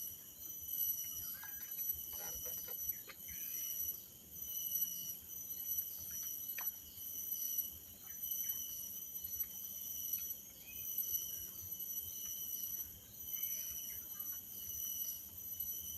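Forest insect chorus: steady high-pitched trilling at several pitches at once, swelling and fading every second or two, with a few short bird chirps scattered through it.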